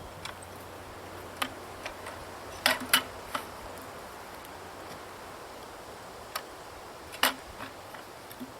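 A few scattered sharp knocks and clicks, the loudest about a third of the way in and again near the end, over a faint steady background hiss.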